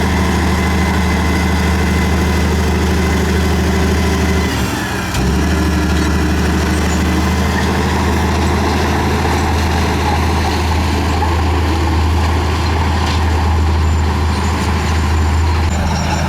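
Bulldozer's diesel engine running steadily, with a brief dip in its sound about four and a half seconds in before it picks back up.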